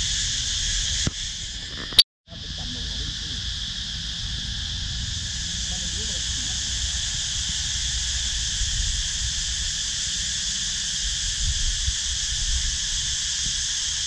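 Cicadas singing in the trees: a steady high-pitched drone that does not let up, over a low rumble. A sharp click and a moment of silence come about two seconds in.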